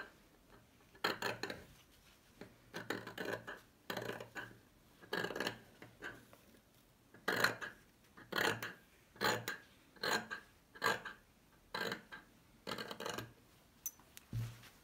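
Metal scissors snipping through thin fabric, a cut every second or so, often in quick pairs, trimming the seam allowance close around a sewn seam.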